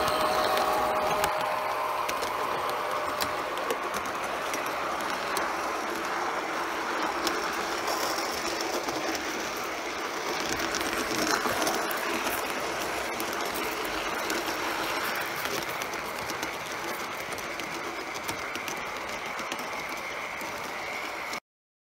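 1:32 scale model Burlington Zephyr train rolling along its track: a steady running noise with scattered clicks from the wheels, and a high whine that fades out about three seconds in. The sound cuts off suddenly near the end.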